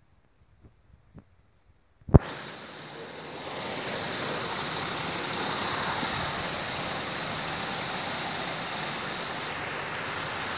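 Tipper trailer emptying a loose sandy load: after a few faint clicks, a sharp click about two seconds in starts a steady rushing hiss, which swells a second later and then holds.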